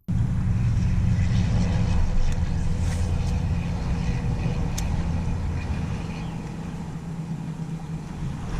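Engine of a vehicle under way, running steadily with a deep low rumble that starts abruptly at a cut.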